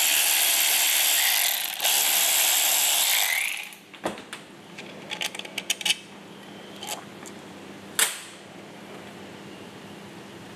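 Cordless electric ratchet running bolts down on an automatic transmission's valve body: two runs, the first about a second and a half and the second about two seconds. Then light metal clicks and taps as the valve body and its bolts are handled, with one sharper click about eight seconds in.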